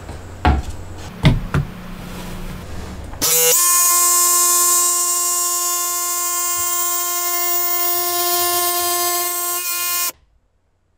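A few knocks of wood as a board is laid down, then about three seconds in a Makita JV184D 18 V cordless jigsaw starts and runs with a steady whine, cutting through a thin board; it stops suddenly near the end.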